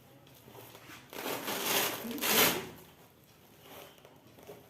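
Rustling and shuffling of clothing and body movement, as a person shifts position. It lasts about a second and a half and is loudest near its end.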